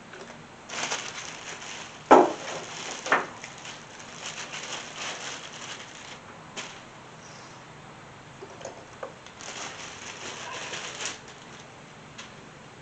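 Hand work on the engine while new coil packs are fitted: stretches of rustling and crinkling with a sharp click about two seconds in and another about a second later.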